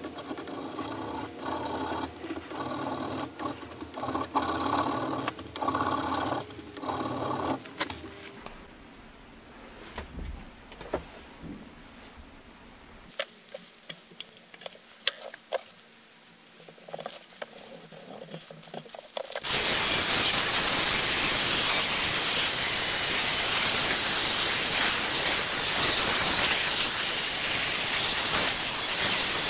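A hand file rasps in repeated strokes on a mahogany knife handle for about the first eight seconds, followed by quiet with a few small handling clicks. About two-thirds of the way in, an angle grinder fitted with a felt polishing wheel starts up and runs steadily, buffing the steel blade; this is the loudest sound.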